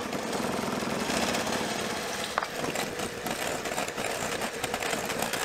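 Electric hand mixer running steadily, its beaters clattering against a glass bowl as an egg is beaten into creamed shortening and sugar.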